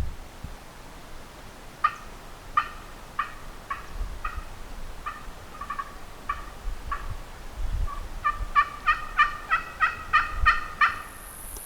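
Turkey yelps: a series of short, evenly spaced notes, then a quicker, louder run of about a dozen yelps near the end.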